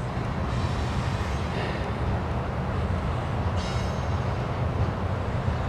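BNSF freight train rolling past with a steady low rumble, and a faint high squeal about three and a half seconds in.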